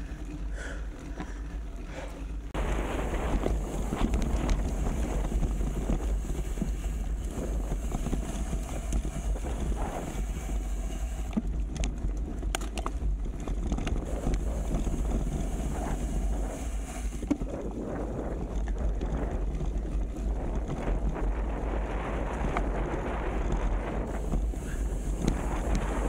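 Wind rumbling on the microphone over a steady rushing noise, which steps up in level about two and a half seconds in and stays there, with scattered faint clicks.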